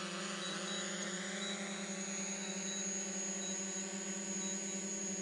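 Small quadcopter drone hovering low overhead as it comes in to land, its propellers giving a steady whine.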